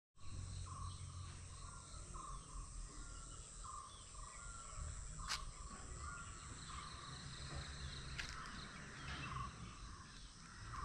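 Outdoor wooded-hill ambience: insects buzz steadily at a high pitch while a bird repeats short rising notes, over a low rumble. There is one sharp click about halfway through.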